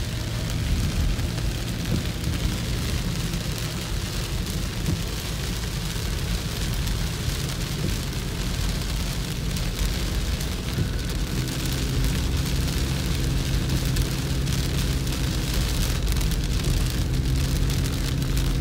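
Heavy rain pelting a moving car's roof and windshield, heard from inside the cabin over the low noise of the car and its tyres on the wet road. About halfway through, a steady low hum from the car stands out more clearly.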